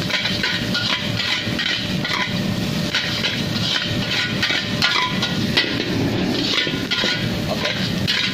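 Metal spatula scraping and clanking against a wok as fried rice is stir-fried, with irregular knocks every half second or so over a steady rushing noise.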